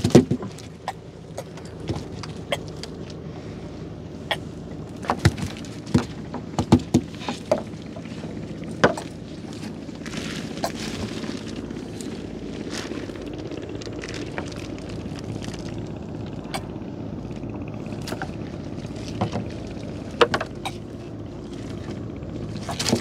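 Gill net with plastic floats being hauled and handled on a small wooden boat's deck: scattered sharp knocks and taps as the net, floats and a caught fish hit the boards, over a steady low hum.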